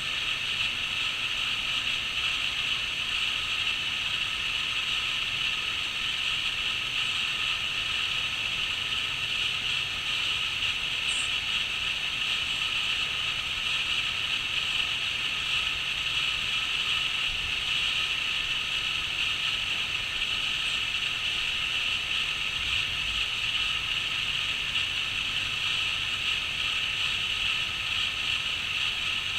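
A dense chorus of crickets trilling without a break, a steady high-pitched sound.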